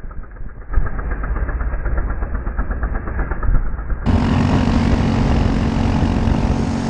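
Race kart's Briggs & Stratton LO206 single-cylinder four-stroke engine running hard at racing speed on board. About four seconds in, the sound cuts from a muffled engine note to a clearer, steady one.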